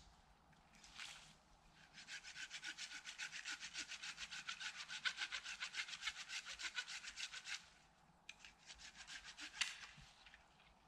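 Wood being cut with a hand saw in quick, even back-and-forth strokes for about five seconds, then a short pause and a second, shorter run of strokes.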